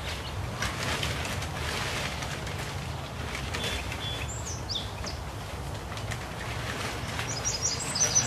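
Outdoor ambience of wind rumbling on the microphone and the rustle of tent fabric being handled. A small bird chirps a couple of times about halfway through and in a quick run of chirps near the end.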